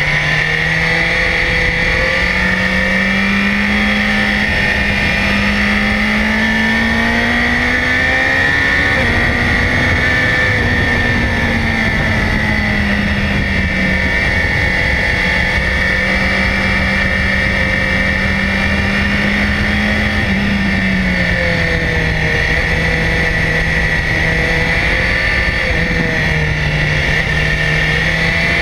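BMW S1000XR's inline-four engine under way, heard from a camera mounted on the bike with wind rush over it. The engine note climbs slowly for about nine seconds, eases back down, drops suddenly about twenty seconds in, and picks up again near the end.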